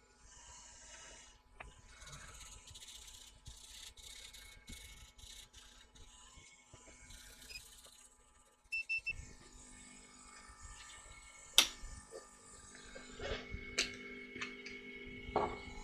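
Electronics repair bench sounds: a faint steady hiss, then three short high electronic beeps about nine seconds in, after which a low steady hum sets in, and a few sharp clicks near the end.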